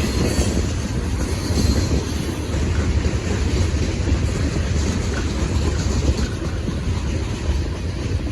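CSX freight train rolling past, a steady low rumble of its wheels on the rails.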